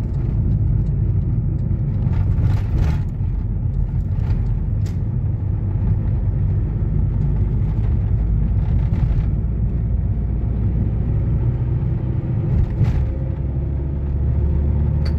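Car driving along a town street, heard from inside the cabin: a steady low rumble of engine and tyres on the road, with a few brief ticks or rattles.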